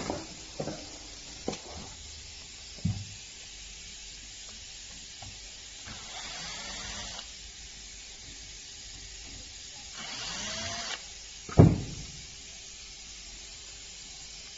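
Handling noises from the repair work: a few light knocks and clicks, two stretches of hissing about a second long each, and one sharp knock near the end.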